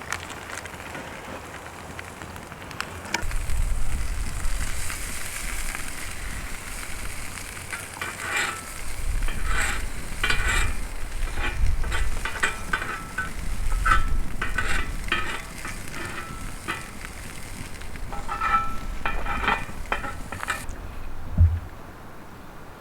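Food sizzling in a pie iron over the heat, with repeated scrapes and clicks of metal against metal from about eight seconds in, and a low wind rumble on the microphone.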